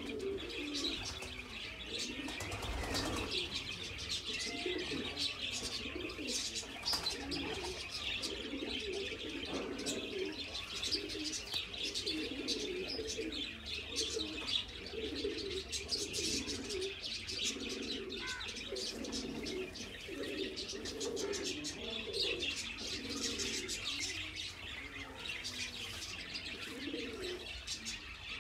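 Pigeons cooing over and over, with a steady chatter of high-pitched chirping.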